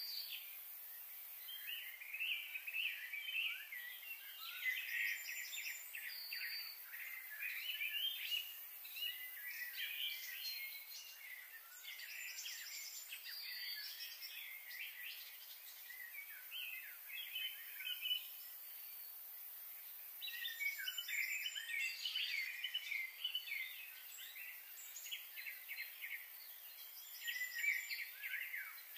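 Wild birds chirping and singing, many short calls overlapping, with a thinner spell midway.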